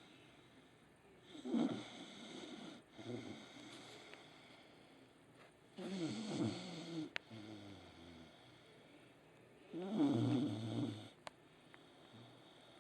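Red-nose pit bull snoring in her sleep: a slow series of snores, roughly one every three to four seconds, some with a falling pitch. The loudest snore comes near the end.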